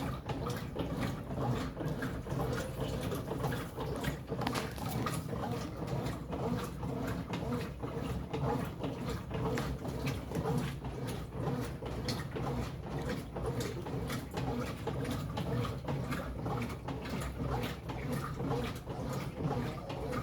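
Brastemp Ative BWL11 11 kg top-loading washing machine washing rugs: a steady low motor hum under continual irregular clicks and swishes as the load is churned.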